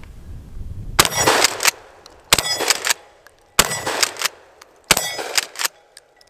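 Mossberg 590S 12-gauge pump shotgun fired four times, about 1.3 seconds apart, with the pump worked between shots. Each shot is followed by a ringing clang, typical of a steel plate target being hit. The gun is feeding alternated 2¾-inch target loads and 1¾-inch mini-shells.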